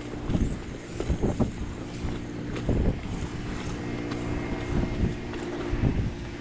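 Steady motor hum of the roof-washing rig running while a wand sprays solution onto clay roof tiles, with gusts of wind buffeting the microphone.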